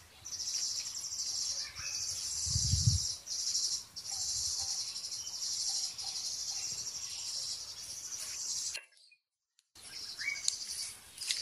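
Insects trilling in a dense, pulsing high chorus, with faint bird chirps. There is a low thump about two and a half seconds in. About nine seconds in, the sound cuts out completely for about a second, then the chorus returns.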